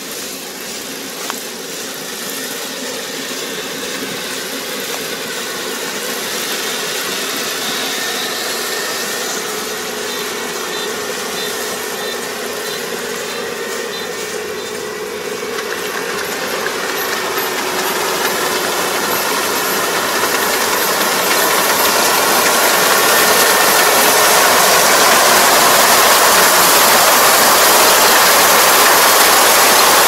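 Kubota ER470 four-row combine harvester's diesel engine and cutting machinery running as it harvests flattened rice, growing steadily louder as it approaches.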